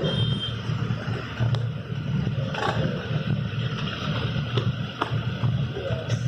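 Motorcycle engine running with a low, uneven rumble.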